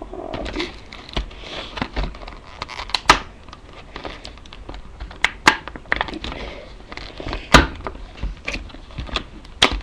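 Plastic packaging of a boxed cube being handled and pried at, crinkling and crackling, with several sharp clicks and taps along the way.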